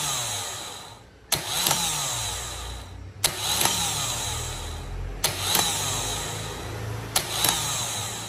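Vectra starter motor on a bench test, switched on by jumper leads about every two seconds. Each time it starts with a sharp click, spins up and winds down with falling pitch. It engages each time, the normal behaviour the mechanic is checking for while testing for a bad contact at a loose terminal screw.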